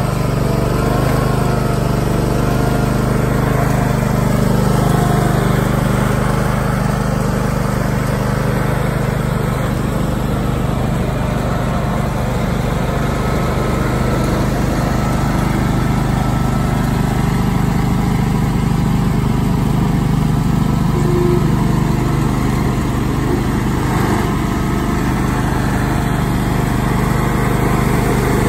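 Bolens 1250 garden tractor's engine running steadily at working speed while the tractor drives and works its front loader.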